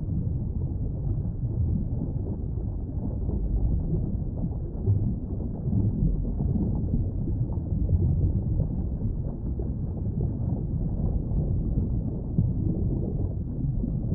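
Underwater ambience: a steady low rumble of water noise, with no distinct animal calls.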